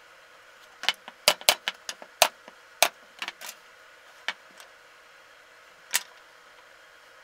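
Cut plywood parts knocking and clacking against each other and the wooden workbench as they are handled and set down: a quick run of about a dozen sharp knocks, then two single knocks spaced a couple of seconds apart.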